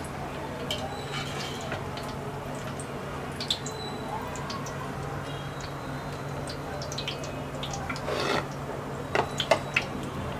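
Batter-coated stuffed green chillies deep-frying in hot oil in a metal kadai: steady sizzling with scattered crackles and pops, over a low steady hum. This is the second fry on high heat that makes them crunchy. A louder burst comes about eight seconds in, then a few sharper clicks near the end.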